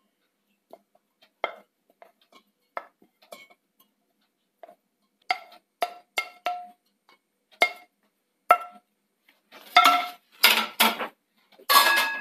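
Wooden spatula scraping and tapping onion slices out of a steel pan into a stainless-steel mixer-grinder jar: soft scattered knocks at first, then sharper clinks with a metallic ring, and a louder clatter of metal near the end.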